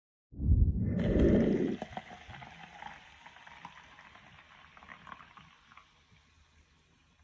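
Sparkling water poured from a plastic bottle into a glass: a loud pour for about a second and a half, then the carbonation fizzing and crackling, fading away over the next few seconds.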